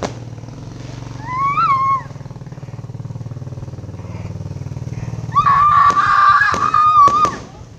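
Fireworks cracking a few times near the end, over a steady low motor hum. A short high wavering tone comes about a second in, and a longer held high tone sounds through the bursts.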